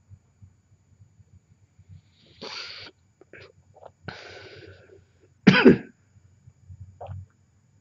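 A person coughs once, short and strong, about five and a half seconds in. Two softer hissing sounds come before it, over a faint low rumble.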